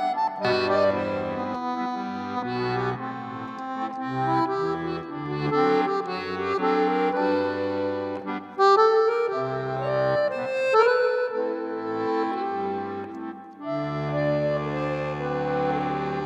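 Background instrumental music: a melody moving over held low notes.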